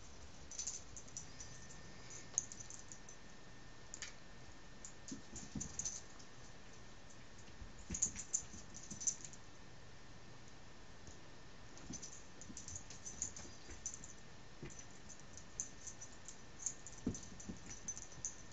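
Small dog chewing and tossing a toy on carpet: faint clusters of sharp clicks from teeth on the toy, with a few soft thumps. A faint steady high whine runs underneath from about a second in.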